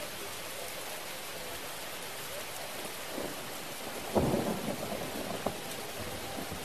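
Steady rain, with a rumble of thunder about four seconds in.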